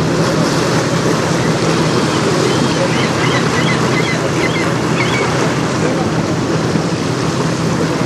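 Wind buffeting the microphone over choppy river water, with a steady low engine hum underneath.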